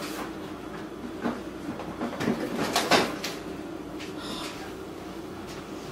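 Frozen groceries being handled and put into an open freezer: packaging rustling with a few light knocks and clunks, the loudest about three seconds in.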